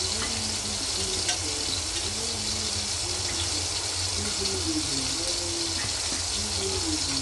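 Masala-stuffed bitter gourds frying in hot oil in a kadhai: a steady sizzling hiss over a low hum.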